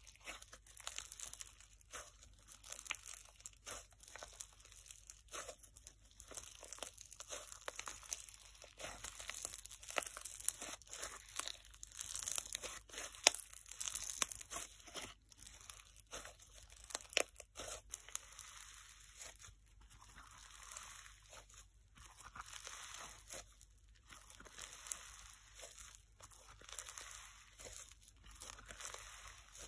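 Pink fizz slime packed with snow, squeezed and stretched by hand, giving a dense, irregular run of crunchy, crackling, fizzing pops.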